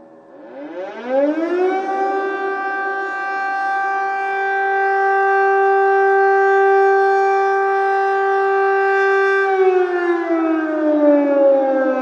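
Air raid siren sounding an air-attack warning. It winds up in pitch about half a second in and holds one steady wail for about eight seconds. Near the end it starts winding down in pitch.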